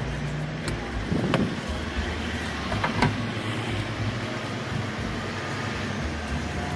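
Steady hum of motor vehicles at a roadside fuel station, with a few light clicks and knocks.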